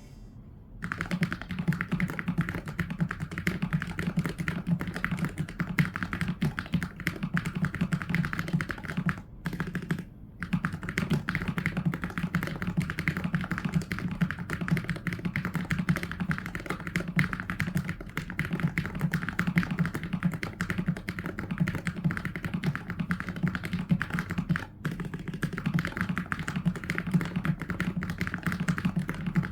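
Fast, continuous typing on a Keychron K3 HE, an ultra-slim keyboard with low-profile magnetic switches: a dense run of key clicks that starts about a second in, with brief pauses about ten and twenty-five seconds in.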